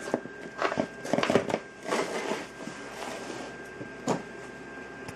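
Clicks and rattles of a partly dismantled Panasonic cordless drill's plastic gearbox and housing being handled, then the drill set down on a wooden floor, with one more sharp click near the end.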